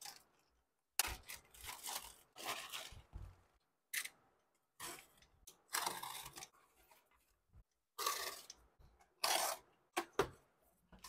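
A plastic mailer bag and then a cardboard box being cut open with a box cutter and pulled apart by hand: a series of short crinkling, scraping and tearing sounds with brief gaps between them.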